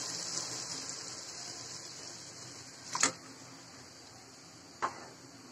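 Water poured into a pot of simmering duck curry, a steady hiss that fades over the first three seconds. Later come two sharp knocks about two seconds apart.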